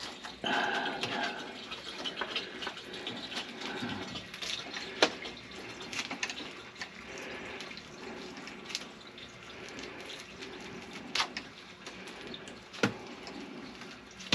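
Water running and splashing in a kitchen sink, with a few sharp knocks.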